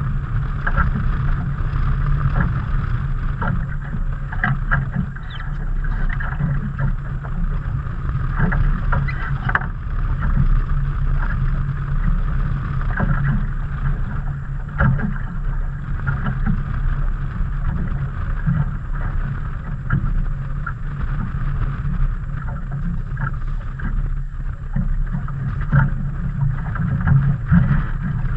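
Small fishing boat on choppy water: a steady low rumble with frequent small knocks and slaps, from water lapping against the hull and wind on the microphone.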